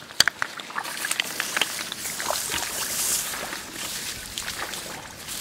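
Water splashing and sloshing in shallow muddy water, with many scattered small clicks and crackles; the splashing swells to its loudest about three seconds in.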